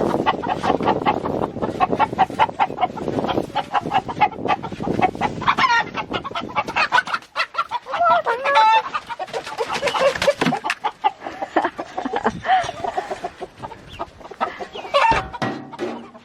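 Chickens clucking, with dense, rapid clucks at first and several louder, drawn-out calls that bend in pitch from about the middle on. They are clucking as though expecting to be fed.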